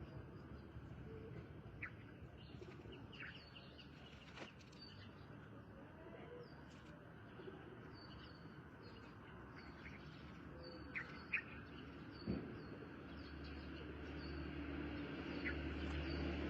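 Faint, scattered bird chirps, short and high, over a low steady background hiss.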